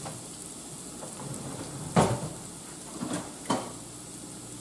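A kitchen utensil drawer pushed shut with a sharp knock about two seconds in, followed by two lighter knocks, over the steady low sizzle of chopped vegetables cooking in a skillet.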